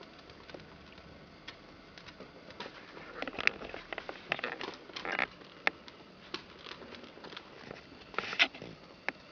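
Three-week-old Prague Ratter puppies wrestling on a fleece bed and blanket: rustling and scrabbling with scattered small clicks and pops. The sounds are busiest from about three to five seconds in, with the loudest cluster near the end.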